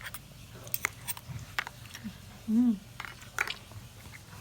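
Scattered light clicks of spoons against dishes while agar jelly is being eaten, with one brief vocal sound, rising then falling, about two and a half seconds in.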